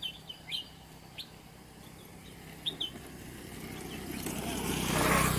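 Scooter engine idling steadily on fresh oil, with birds chirping. Over the last two seconds a louder rushing sound swells up over the idle.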